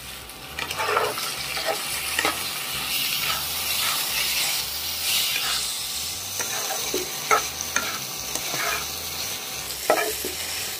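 Bitter gourd pieces sizzling in a pan while being stirred, with a spatula scraping against the pan now and then. The sizzling rises about half a second in.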